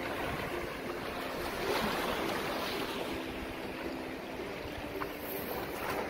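Sea surf washing and breaking in the shallows, a steady rushing wash, with wind rumbling on the microphone.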